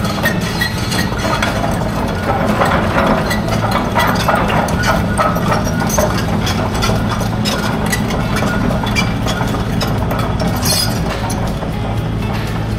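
Case 145 crawler excavator's diesel engine running steadily as the machine travels, with its tracks clinking and clattering over the pavement.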